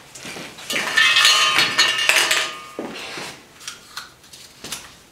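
Lots being stirred by hand inside a metal trophy cup, a loud rattling clatter with a metallic ring for about two seconds, followed by quieter rustling of a paper slip as it is unfolded.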